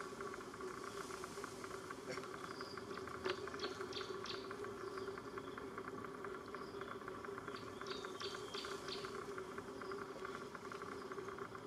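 Steady insect trilling, a dense fast pulsing, with a few short high chirps about two to four seconds in and again about eight seconds in.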